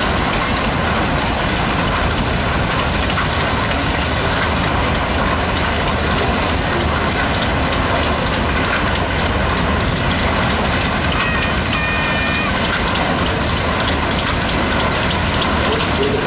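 Antique steam traction engine and a large old gas tractor running past at parade pace: a steady low engine drone.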